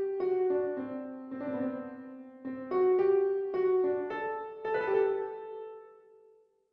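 Piano playing a short example melody in the Lydian mode, the phrase heard twice, with the last note left ringing until it fades out near the end.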